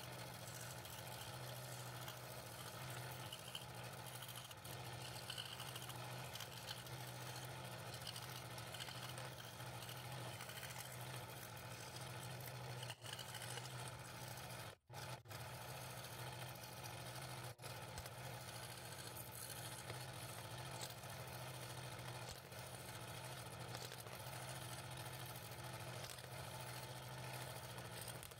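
Scroll saw running steadily, its reciprocating blade cutting through thin wood, with a steady low motor hum under the cutting noise. A couple of very brief breaks come near the middle.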